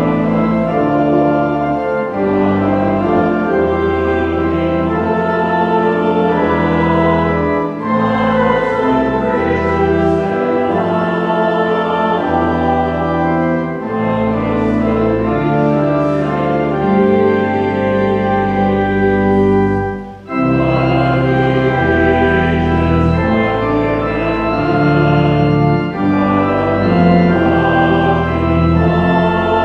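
Pipe organ playing a hymn in held, sustained chords over a moving bass, with a brief break about twenty seconds in.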